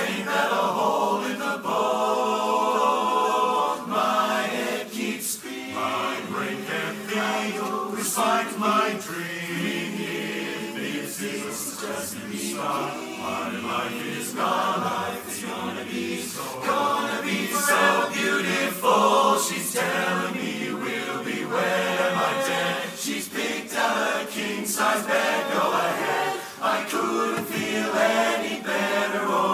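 Men's barbershop chorus singing a cappella in close four-part harmony, many voices together with no instruments.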